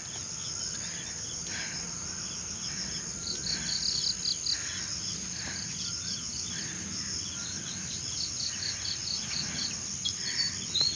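Crickets chirring: a steady high-pitched trill, with rapid pulsed chirps repeating over it.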